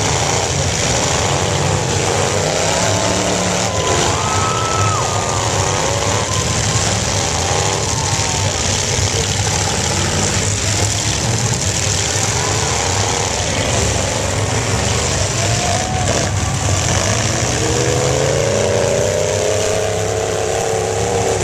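Demolition derby cars' engines running hard and revving, with a rising rev near the end.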